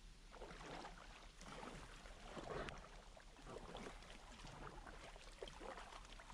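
Kayak paddle strokes: faint, irregular splashing as the paddle blades dip into the water and water runs off them.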